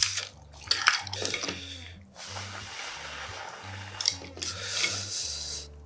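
Metal tongs clinking against a ceramic bowl as wet ramen noodles are lifted out of the soup. There is a cluster of clinks in the first second or so, a softer wet shuffling, and another clink about four seconds in.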